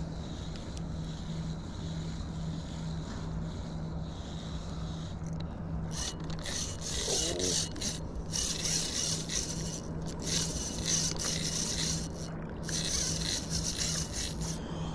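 Spinning reel being cranked to wind in line: a rasping whir that starts about six seconds in and runs in several stretches with short pauses between them, over a low steady hum.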